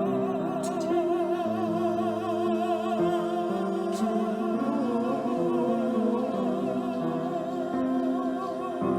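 A solo singer with strong vibrato holding long notes over sustained, slowly changing chords from the accompaniment.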